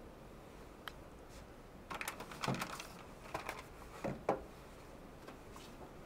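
Handling noise: a single click, then small clusters of light clicks and clattering knocks, about two seconds in and again around three and a half and four seconds in, as hardware is moved about on a work surface.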